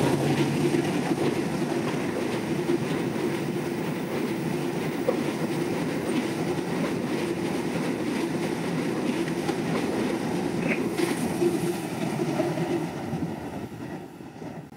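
Train carriages rolling past on the track below: a steady rumble of wheels on rail with a low hum, fading away over the last couple of seconds as the train draws off.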